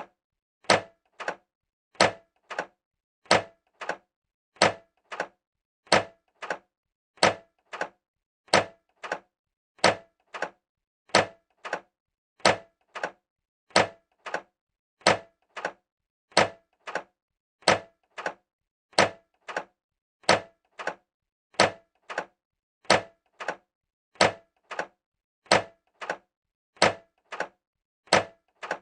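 Microwave oven door being opened again and again: each opening is a sharp latch click followed by a softer click, with a brief metallic ring, repeating about every second and a third.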